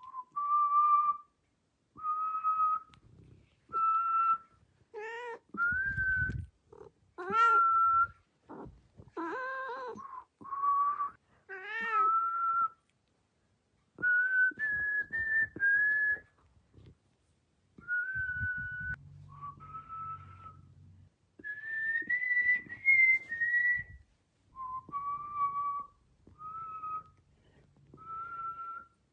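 A person whistling short single-pitch notes, about one every two seconds, while a house cat answers with several meows in the first half.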